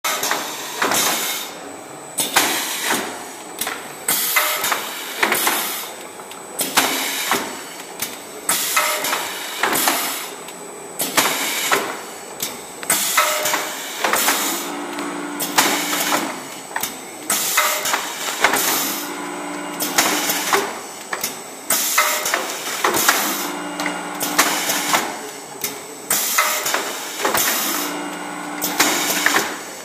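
Automatic filling and closing machine for plastic shell containers of tooth powder working in repeated cycles: many sharp clacks and knocks of shells and metal parts, with a short low hum coming back about every four and a half seconds.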